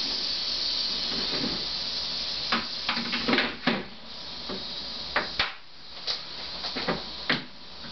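Western massasauga rattlesnake rattling steadily in defence, agitated at being handled, fainter after about four seconds. Sharp plastic knocks and snaps of a storage tub lid being fitted and pressed down come through it, several in the middle and a few more near the end.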